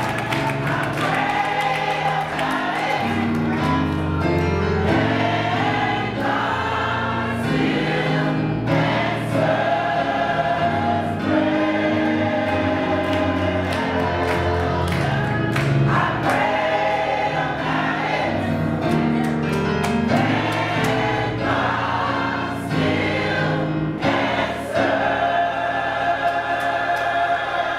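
Church choir singing a gospel song with instrumental accompaniment, held sung notes over a low bass line.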